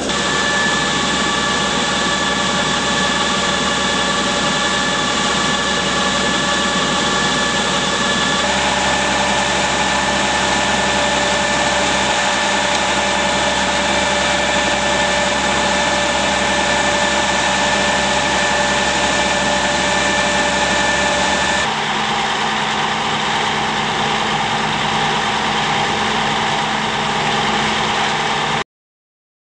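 Tractor engine and a grain cart's auger drive running steadily, with several steady whining tones over the engine noise. The sound changes abruptly twice and cuts off suddenly near the end.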